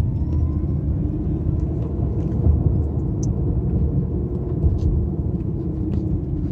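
Toyota Prius Prime's electric drive motor whining upward in pitch under hard acceleration for about the first second, then levelling off, over a steady low road and tyre rumble inside the cabin. The car is running on electric power alone; the gasoline engine does not start.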